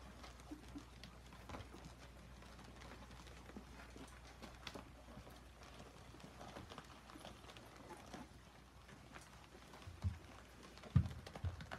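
Faint scattered clicks and shuffling from a German Shorthaired Pointer mother and her ten-day-old puppies moving about on the floor of a wooden whelping box, with a few dull thumps near the end.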